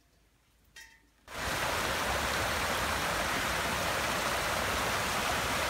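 Creek swollen with rainwater rushing over rocks and a log, a loud steady rush of water that starts abruptly about a second in.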